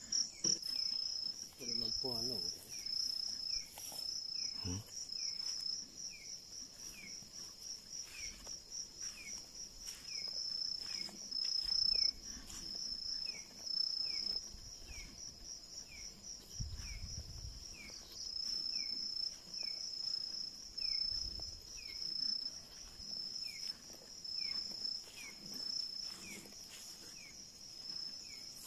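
Night chorus of insects: a steady, high, rapidly pulsing cricket trill, with a second short falling chirp repeating about once or twice a second. A few low thuds and rustles come and go.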